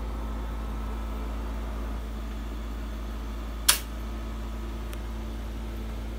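Two-slice Black+Decker toaster popping up with one sharp click about three and a half seconds in: the frozen pancakes are done. A steady mechanical hum runs underneath.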